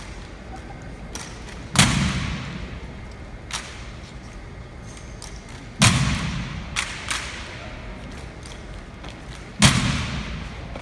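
Drill platoon striking rifle butts on the floor in unison: three loud, sharp thuds about four seconds apart, each ringing out with a long echo in a large hall, with a few lighter clicks of rifle handling between them.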